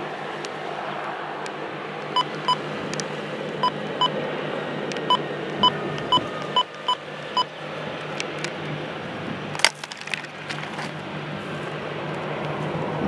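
About a dozen short electronic beeps, all at the same pitch and unevenly spaced like buttons being pressed, over a steady background hum and rush of noise. A single sharp click follows a couple of seconds later.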